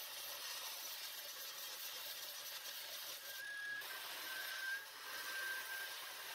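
Small bench belt grinder running with a steel bolt pressed against the abrasive belt: a steady grinding hiss, with a faint high whine coming and going in the second half.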